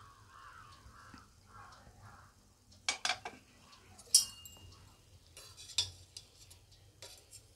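Perforated steel spoon clinking and scraping against a stainless-steel pressure cooker as the cooked pulao is turned, a few sharp metallic clinks with one ringing briefly about four seconds in. Crows caw faintly in the first two seconds.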